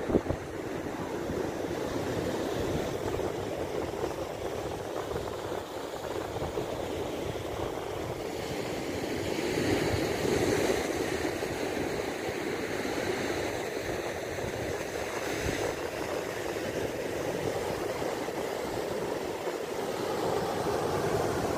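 Sea surf washing and breaking against a rock breakwater and rocky shore, a steady rushing with a louder surge about halfway through, mixed with wind buffeting the microphone.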